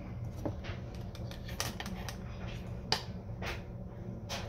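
A metal spoon clinking and scraping against a stainless steel mixing bowl while frosting is stirred: a handful of sharp, irregular clicks, the loudest about three seconds in.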